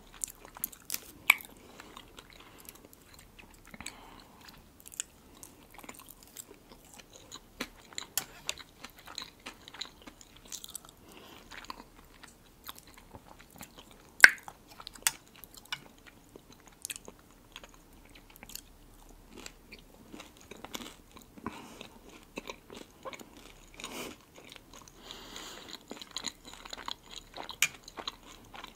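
Close-miked chewing of soft food, with wet mouth sounds and many short, sharp clicks. The loudest click comes about 14 seconds in.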